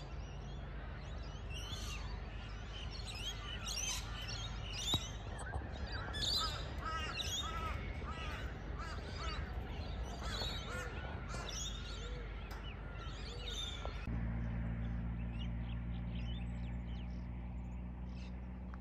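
Birds calling repeatedly over the low, steady rumble of diesel locomotives running at a standstill or slow crawl. About two-thirds of the way through, the calls thin out and a steadier engine hum with several distinct low tones takes over.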